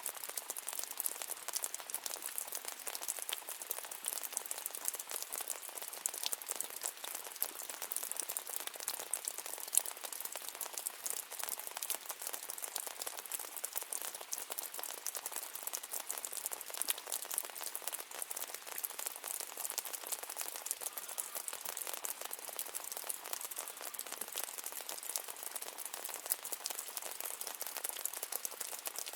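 Steady rain falling, a dense even patter of many small drops with a bright crackling hiss and almost no low rumble.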